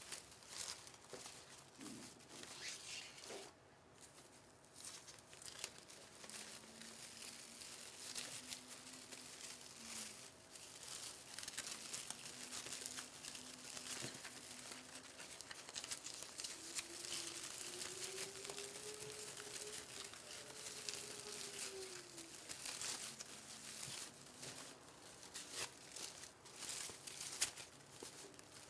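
Ribbon and fabric mesh rustling and crinkling under the hands, a continuous run of small scrapes and crackles as ribbon pieces are gathered into clusters and tucked into the mesh wreath.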